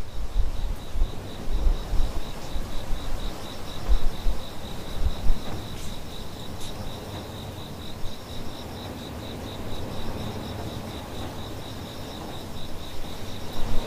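Crickets chirping at night in a steady, pulsed high trill of several chirps a second. Irregular low rumbling thumps on the microphone sit underneath, and there are a couple of faint clicks around the middle.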